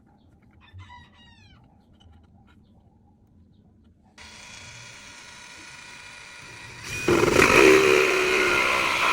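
A short falling bird call about a second in. About four seconds in, an electric drill with a hole saw starts running with a steady whine. About seven seconds in it gets much louder and harsher as the hole saw bites into the wood.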